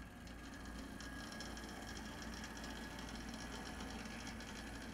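HO scale brass model of an SP&S Z-8 4-6-6-4 Challenger steam locomotive running on track: its can motor and drive gears whir steadily, with a fine rapid ticking of the wheels and mechanism.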